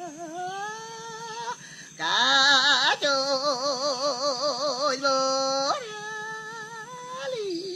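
Mentawai sikerei shaman singing a solo chant without words heard, holding long notes with a heavy wavering vibrato; the voice grows much louder about two seconds in and drops back a few seconds later.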